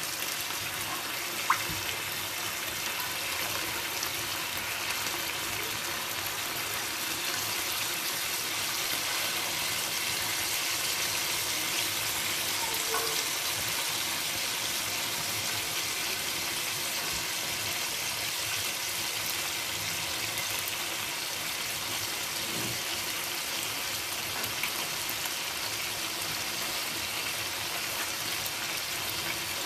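Chicken pieces sizzling steadily in a hot frying pan while they are basted with sauce, with a single sharp click about a second and a half in.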